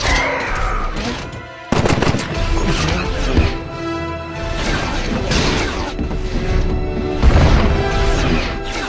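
Action-film battle soundtrack: a sustained orchestral score under rapid alien energy-weapon fire and impacts, with a sudden loud hit just under two seconds in and a heavy explosion near the end.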